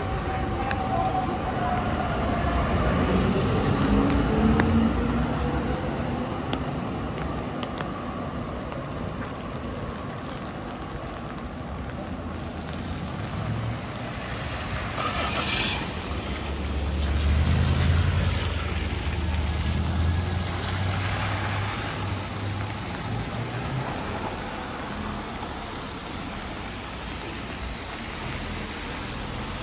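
Traffic on a wet city street in heavy rain: vehicles pass over a steady rain haze. A brief sharp hiss comes about halfway, followed by a heavy vehicle's low engine hum for a few seconds.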